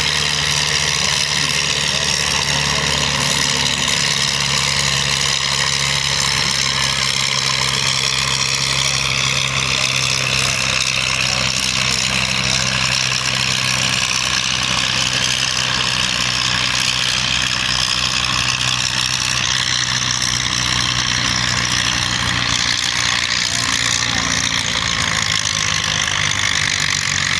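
Antique tractor engine running steadily under heavy load as it drags a weight-transfer pulling sled, its note wavering slightly.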